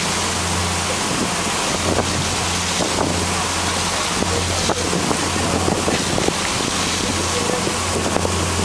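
Wind buffeting the microphone over the steady low drone of a moving boat's engine, with the rush of water along the hull.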